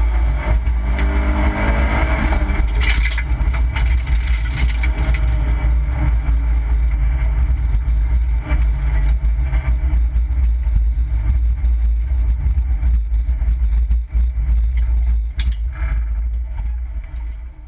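Opel Corsa B rally car heard from inside the cabin: engine and heavy low road rumble, the engine's pitch rising and falling in the first few seconds, then running steadier at lower revs. It fades near the end.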